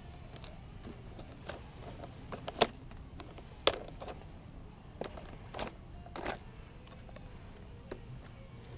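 Plastic Bruder toy trucks handled by hand: irregular sharp clicks and knocks of plastic parts, the two loudest about a second apart in the first half, over a faint low hum.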